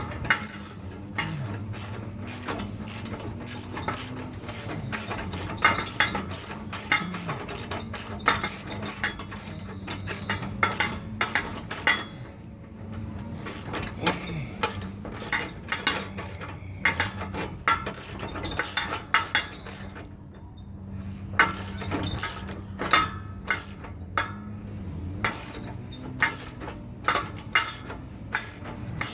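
Ratchet wrench clicking in quick strokes as the screws of an exhaust flange bracket are tightened down, with two short pauses along the way. A steady low hum runs underneath.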